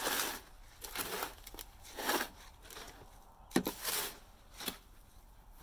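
A hoe dragged back and forth through a stiff, dry concrete mix in a wheelbarrow: about six separate gritty scrapes and crunches.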